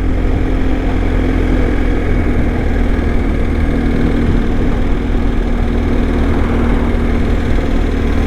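BMW R1250 motorcycle's boxer-twin engine running at a steady speed, with road and wind noise.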